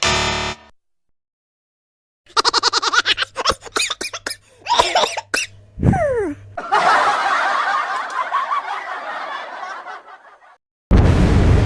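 Edited-in laughter sound effects: choppy bursts of laughing, a quick falling glide, then a longer stretch of laughter. A loud blast starts near the end.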